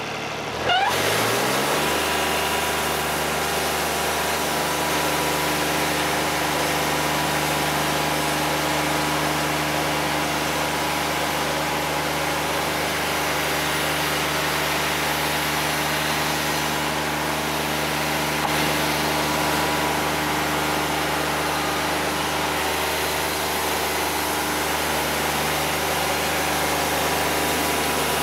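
Wood-Mizer LT50 Wide portable sawmill's engine revving up from idle about a second in, then running steady at high speed.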